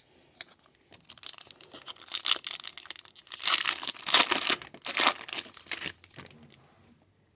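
A foil trading card pack wrapper being torn open and crinkled by hand. The crackling builds about a second in, is loudest past the middle and dies away near the end.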